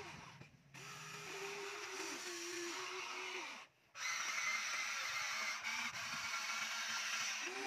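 Electric motors of a toy remote-control excavator whining as it swings and works its boom and bucket, the pitch changing with each movement. The sound cuts out briefly just under four seconds in.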